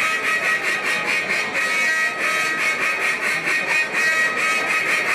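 Mallard duck call blown in competition style: a fast, unbroken run of loud quacking notes, about four to five a second.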